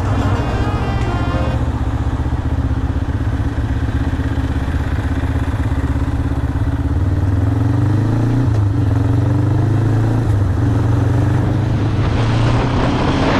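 Kawasaki ER-5's 500cc parallel-twin engine running at low speed, rising in pitch about seven seconds in as the motorcycle speeds up, with wind on the microphone building near the end. Background music fades out about a second and a half in.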